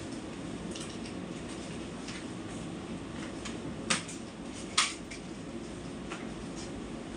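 Household items being handled at a kitchen counter: light clinks and two sharp knocks about a second apart near the middle, over a steady low hum.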